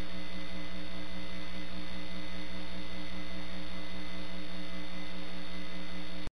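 Steady electrical mains hum on the sound system, made of several even tones held at one level with no other sound. It cuts out abruptly just before the end.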